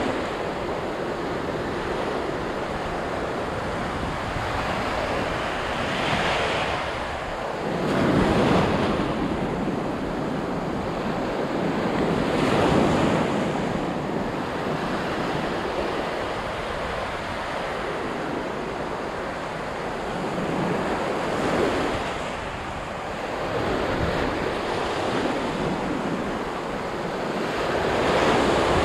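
Ocean surf breaking and washing up the beach, swelling louder every few seconds as waves come in, with wind rumbling on the microphone.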